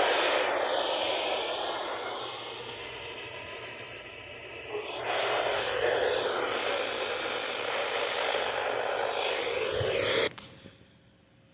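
Radio static: a steady hiss with faint wavering whistles that eases a little around four seconds in, picks up again, then cuts off suddenly about ten seconds in, leaving near silence.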